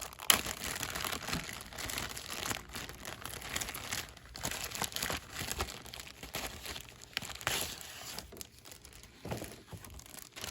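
A plastic Ziploc bag crinkling and rustling as it is handled and opened, with papers inside shifting.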